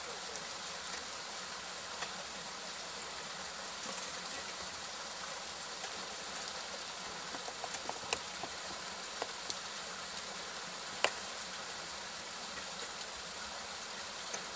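Scattered sharp taps and clicks of ice axes and crampons biting into waterfall ice, over a steady hiss. There is a small cluster of taps around the middle, and the sharpest single strike comes about three-quarters of the way through.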